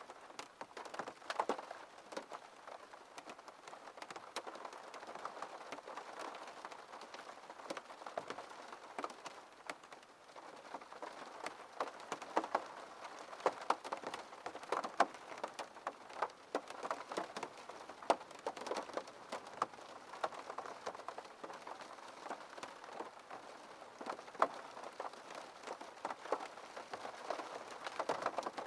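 Rain falling on a window: a steady hiss of rain with many separate drops tapping on the glass throughout.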